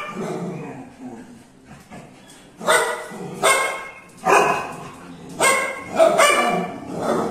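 Street dog barking: after a quieter start, a run of about six sharp barks, roughly one a second, beginning about two and a half seconds in.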